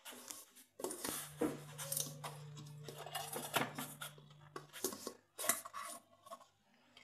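A stainless-steel mixer-grinder jar lifted off its base and its clear plastic lid twisted off, making irregular scraping, rubbing and light clicks of plastic on steel.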